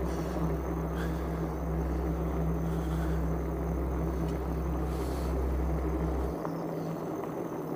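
ENGWE X26 e-bike being ridden: a steady low drone of the motor and tyres rolling on the path. The deepest part of the drone drops away about six seconds in.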